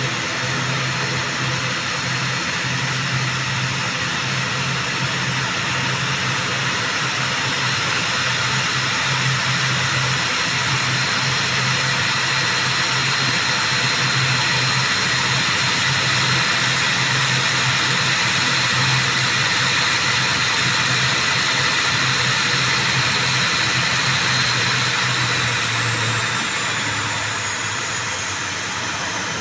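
ATR 72-600 turboprop engines running steadily, with a high whine over a low propeller hum. About 26 seconds in, the whine and the hum drop in pitch and the sound eases slightly, as the power comes back.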